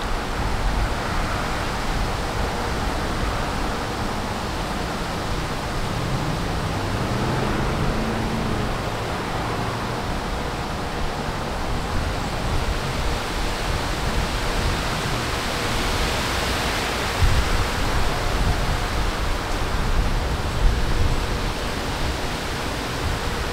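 Gusty wind buffeting the microphone: a steady rushing noise with rumbling low buffets, and a few stronger gusts in the last third.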